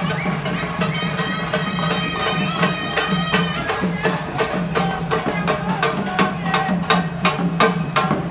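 Traditional procession music: a reedy pipe melody over a steady drone, with drum strokes that grow louder and more frequent toward the end.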